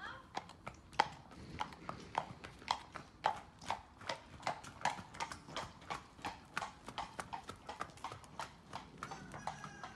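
Horses walking on asphalt, their hooves clip-clopping in an uneven run of sharp knocks, about three to four a second.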